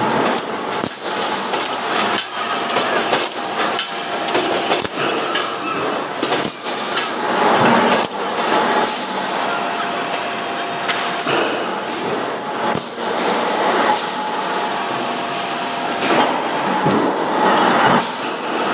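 Factory-floor din: many irregular, hammer-like metal bangs and clanks over a steady machinery noise in a metal-parts workshop.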